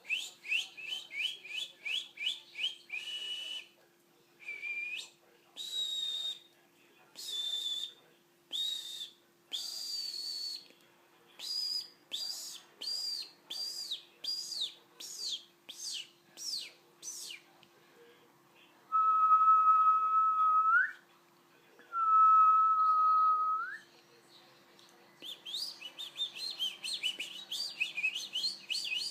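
Pet bird whistling and chirping: quick runs of short, high, rising notes, then single longer notes, with two long, steady whistles, the loudest sounds, each rising at the end, and quick chirping again near the end. A faint steady low hum runs underneath.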